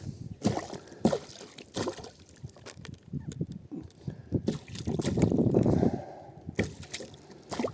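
Water sloshing and splashing around a fishing kayak while a hooked peacock bass is being played, with several sharp knocks scattered through.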